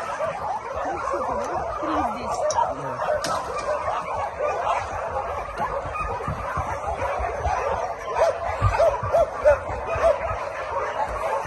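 Several young dogs whining and yipping at once, short overlapping calls throughout; from about eight seconds in, single yelps come about twice a second.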